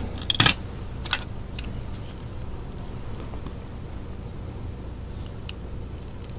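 A few light, sharp clicks and taps from small objects being handled, the clearest about half a second in, over a steady low hum.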